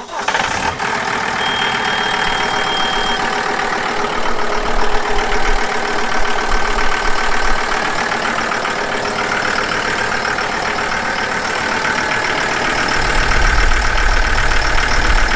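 John Deere 5075M tractor's diesel engine catching at once on the key and running at a steady idle: it starts right up after a fuel filter change, with the new filter pre-filled with diesel so it does not draw air. A short thin high tone sounds for about two seconds near the start.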